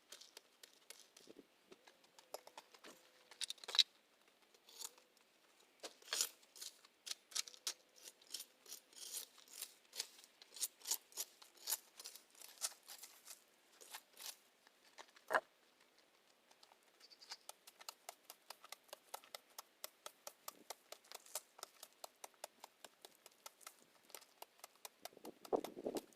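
Crisp clicks, snaps and rustles, several a second, with a short lull just past the middle: weeds and plant growth being pulled out and broken up. A duller thump comes near the end.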